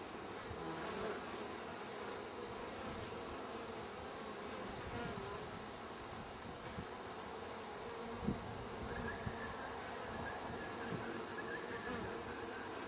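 Feral European honeybees buzzing steadily around their wild hive, single bees rising and falling in pitch as they fly past. A single short knock sounds about eight seconds in, and a faint steady high tone joins soon after.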